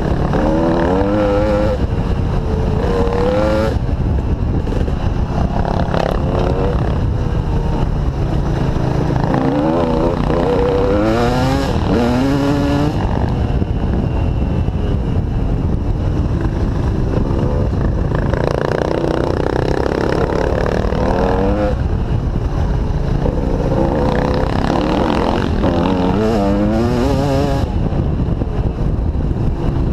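Dirt bike engine revving up and down as it is ridden, its pitch rising and falling again and again with throttle and gear changes, over a steady low rumble.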